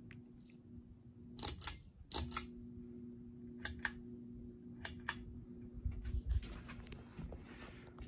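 Aloha Breeze ceiling fan motor humming steadily while its speed switch is clicked: the hum cuts out at a click about a second and a half in and returns at a second click as the fan is switched to high. A few more sharp clicks follow.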